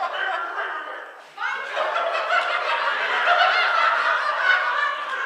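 A group of people laughing, swelling loudly about a second and a half in and staying loud.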